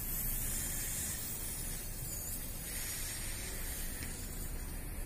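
Air hissing steadily out of an inflated rubber balloon as it is slowly let down.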